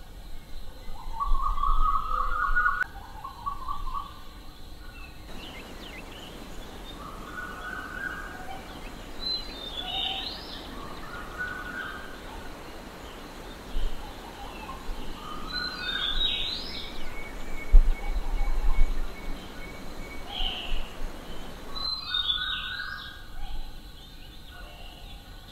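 Short high chirping calls, repeated every couple of seconds, over a steady outdoor background hiss; the background changes abruptly about five seconds in and again near the end.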